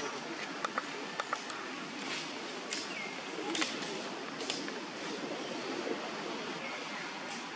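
Outdoor ambience: a steady hiss with a few sharp clicks in the first second and a half, more snaps later, and one faint short chirp about three seconds in.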